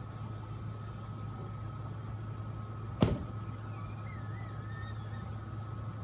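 A steady low mechanical hum, with one sharp knock about three seconds in and faint wavering chirps shortly after.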